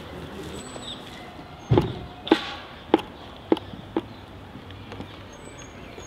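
A run of five sharp knocks, evenly spaced a little over half a second apart, over a low steady background.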